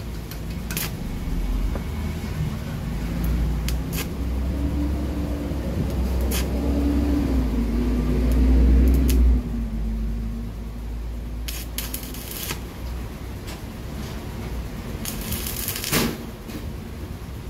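Stick (arc) welding with a welding rod, patching a rusted exhaust pipe: short bursts of arc crackle as the electrode strikes, the longest about a second near the end. Under them a low rumble, loudest in the first half, cuts off suddenly about nine seconds in.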